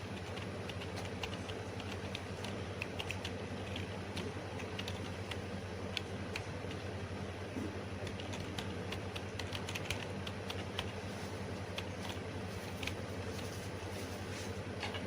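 Computer keyboard typing, irregular key clicks, over a steady low hum.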